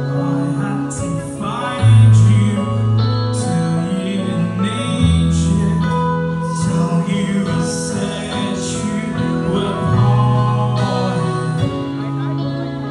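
Live band playing: drum kit with cymbal crashes, electric guitar, keyboard and held bass notes, with singing.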